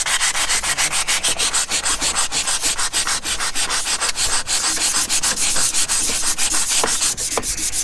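Hand sanding or scuffing with quick back-and-forth strokes, about six a second, a dry scratchy rasp.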